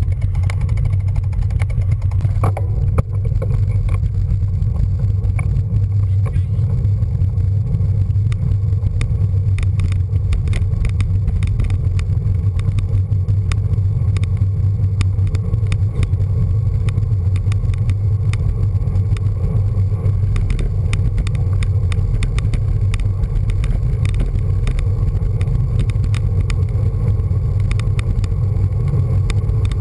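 Wind buffeting and road rumble on a bicycle's handlebar camera while riding along a tarmac road: a steady low roar, with frequent small clicks and rattles.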